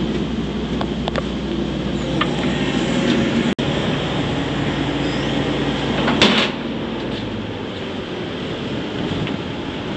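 Tracked excavator's diesel engine and hydraulics running as it sets a heavy steel part down onto a crusher, with a loud metal knock about six seconds in, after which the engine note drops lower.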